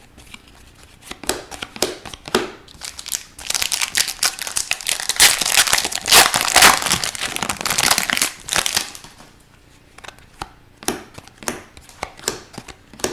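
Foil hockey card pack wrapper crinkling and being torn open, with a dense stretch of crackling in the middle and scattered crinkles before and after.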